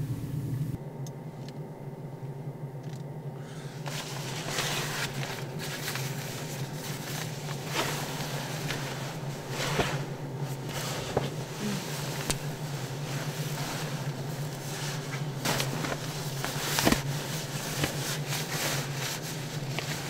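Rustling and knocking of a padded sleeping bag or down jacket and camping gear being shifted around inside a car, many short handling noises over a steady low hum.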